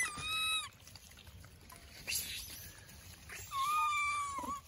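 Long-tailed macaque crying: two high-pitched, wavering calls, a short one at the start and a longer one about three and a half seconds in.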